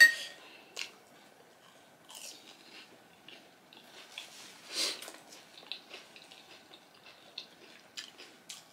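Close-up chewing and crunching of panipuri, the crisp fried puri shells breaking between the teeth, with scattered short crunches and mouth clicks, the largest nearly five seconds in. It opens with a sharp clink of a spoon against a porcelain bowl.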